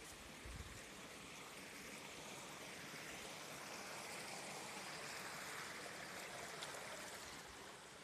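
Water spilling over a small stepped weir into a stream: a steady rushing hiss that grows louder through the middle and eases off near the end.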